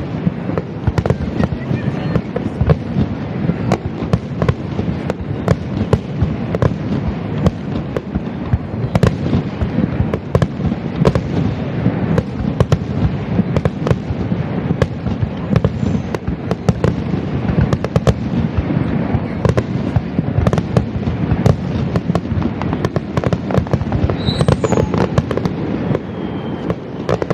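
Aerial fireworks display: many shell bursts going off in quick, overlapping succession, a dense run of sharp reports over a continuous low rumble.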